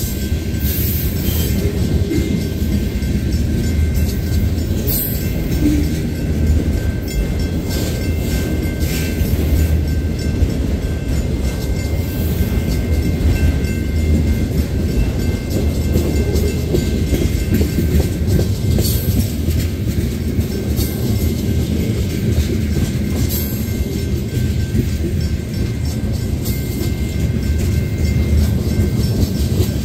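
Freight train tank cars and an autorack rolling slowly past on the rails: a steady low rumble of steel wheels on track. A few sharp clicks and faint steady high-pitched tones ride over it.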